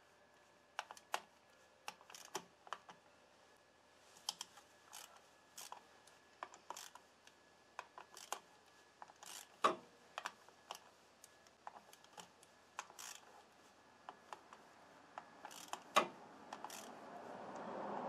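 Hand ratchet and socket clicking and clinking irregularly as the clutch spring-retainer bolts on a Honda VTX1800 are backed out, with two louder metal knocks partway through.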